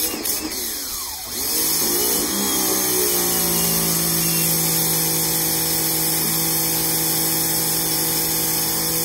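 Sun Joe SPX3001 electric pressure washer switching on suddenly as the trigger is squeezed: the 1800-watt motor and pump hum steadily under the hiss of the water jet, the hum settling about two seconds in.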